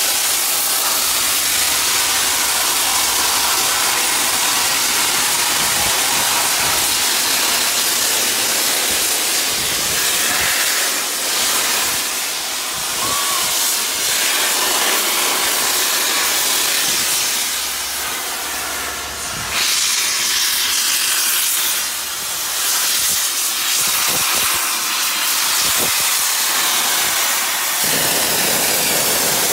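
LNER A3 Pacific 60103 Flying Scotsman drawing slowly into a platform with its cylinder drain cocks open: a loud, continuous hiss of escaping steam that dips briefly a couple of times in the second half.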